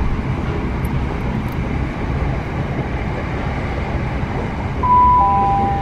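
Steady low rumble of a passenger train's interior while it runs. Near the end, a two-note falling chime sounds: the onboard public-address chime that comes before an announcement.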